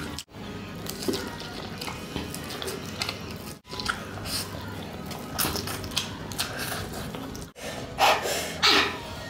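A man slurping and chewing big mouthfuls of spicy instant noodles, with short wet mouth sounds throughout and two loud slurps near the end. A soft music bed runs underneath, and the sound cuts out briefly twice.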